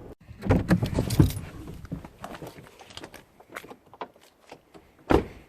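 Keys jangling and clattering in a burst of rattles and clicks, followed by sparse small clicks and a single loud thump near the end.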